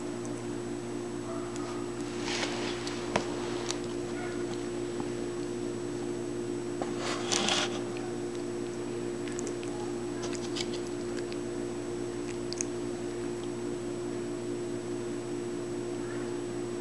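A plastic soda bottle on a tile floor scraping and rustling a few times as a cat paws at it and tugs the toy mouse inside, with the longest scrape about seven seconds in, over a steady low hum.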